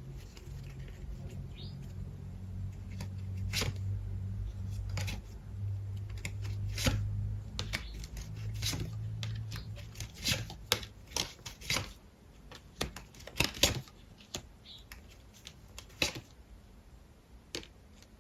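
Tarot cards being shuffled and handled, with irregular sharp clicks and snaps that crowd together about two-thirds of the way in. A low steady hum runs underneath for the first ten seconds or so, then fades.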